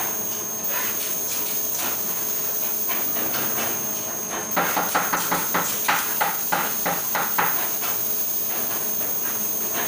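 Steady machine hiss with a faint high whine from a flatbed screen printing machine. About halfway through, a quick run of about a dozen sharp taps or clicks, roughly four a second for about three seconds, as the operator handles a sheet at the print bed.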